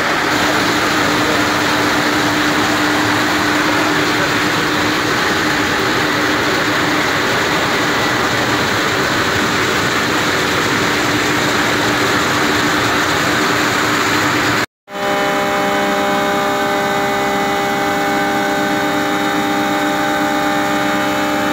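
Breton Levibreton ONE PLUS slab polishing machine running: a steady mechanical noise from the polishing head working a wet stone slab, with a steady hum. It drops out for a moment about two-thirds of the way through and comes back with several steady whining tones over the noise.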